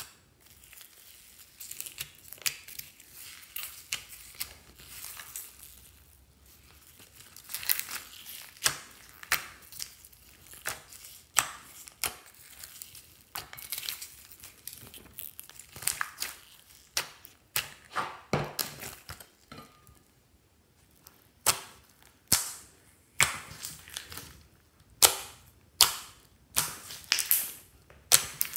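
Hands kneading and pressing glossy white slime mixed with foam beads, giving sharp crackling pops and clicks. Near the end the pops come in a steady rhythm, about one a second, as the slime is pressed down with the fingers.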